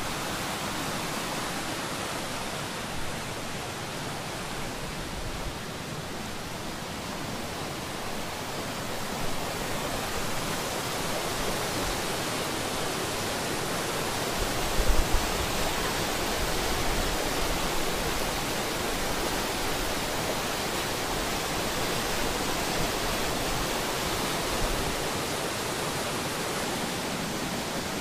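Steady rush of white water as a Northumberland burn pours over rocks and a small waterfall in a narrow gorge, growing a little louder midway as the water comes closer. A brief low thump on the microphone about halfway through.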